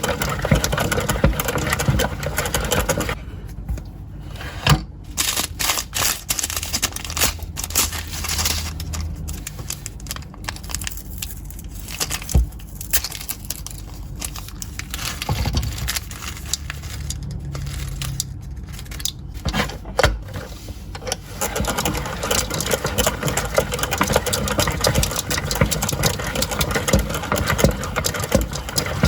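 Close-up crackling and scraping handling sounds of slime being made, with many small clicks: dense at the start, sparser through the middle with a low hum at times, dense again near the end.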